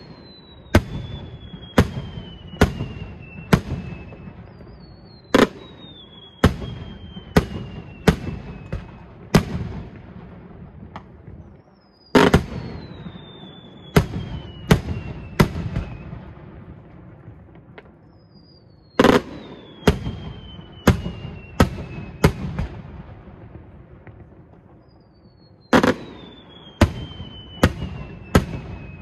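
Aerial fireworks going off in repeated salvos, about every seven seconds. Each salvo opens with a loud bang and a whistle that falls in pitch over about two seconds, then four or five sharp bangs follow.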